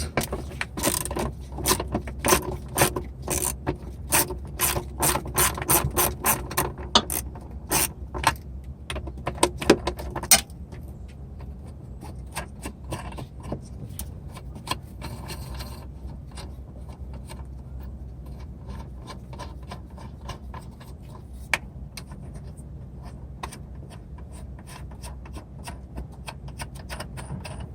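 Socket ratchet clicking rapidly as 10 mm bolts are backed out, the ratchet stopping about ten seconds in, with only a few faint clicks after.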